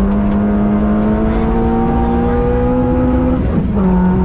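Citroen C2 VTS rally car's 1.6-litre four-cylinder petrol engine pulling hard under full acceleration, heard from inside the cabin. Its pitch climbs slowly through the gear, then drops with an upshift about three and a half seconds in, over the steady noise of tyres on gravel.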